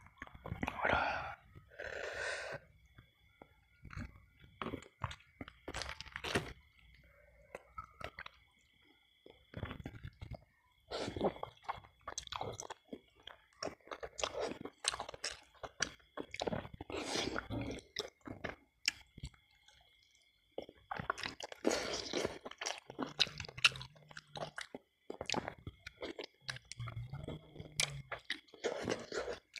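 Close-up chewing and mouth sounds of a man eating tender ingkung chicken by hand: wet smacks and clicks in irregular clusters with short pauses between mouthfuls.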